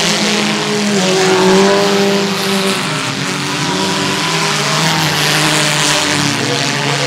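Several small-car engines running hard at once on a dirt track, their overlapping notes rising and falling as the drivers accelerate and back off.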